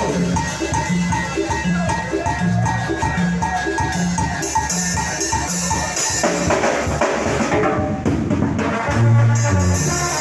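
Music with drums and percussion over a steady, repeating bass beat; about six seconds in the bass drops out briefly, then comes back near the end.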